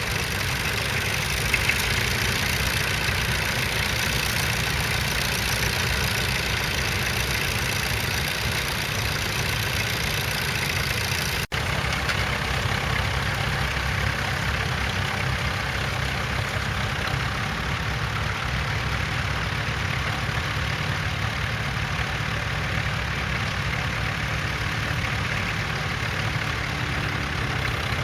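Crawler tractor engine running steadily, a low continuous engine sound, broken by a momentary dropout about eleven seconds in.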